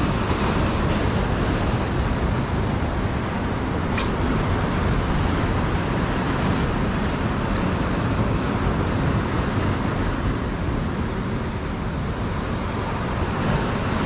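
Ocean surf breaking on and washing through the rocks of a jetty: a steady rushing noise, with one faint click about four seconds in.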